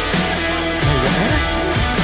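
Background rock music led by guitar, with bending notes over a steady beat.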